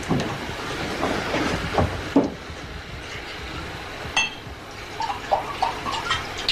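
Glass bottles and drinking glasses handled and knocked together at a bar while drinks are poured, with a few knocks early on and one clear ringing glass clink about four seconds in.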